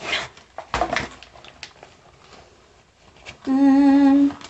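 A girl hums one steady, level-pitched note for under a second near the end. Before it, about a second in, there is a handling thump.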